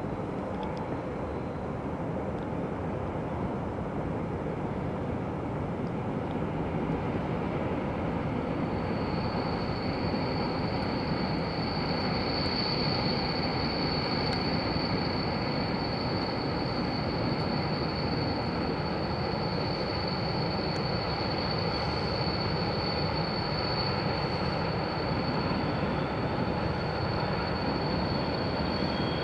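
Distant trains running through a rail yard: a steady rumble, joined about nine seconds in by a thin, high, steady squeal that lasts to the end.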